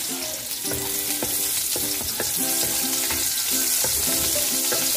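Chopped red onion sizzling in hot oil in a wok, a steady frying hiss, stirred with a wooden spatula that gives a few light scrapes and taps against the pan.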